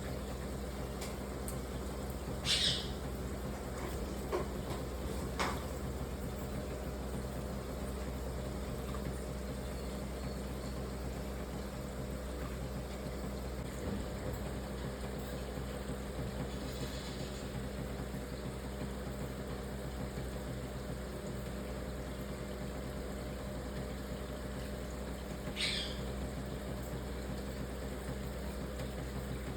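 Steady low background hum, with two short high-pitched calls from a pet parrot, one about two and a half seconds in and one near the end, and a few faint clicks.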